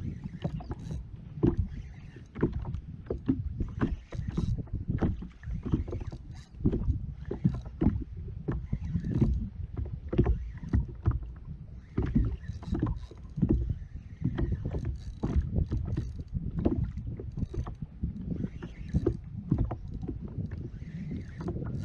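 Irregular knocks and water slapping around a fishing kayak's hull.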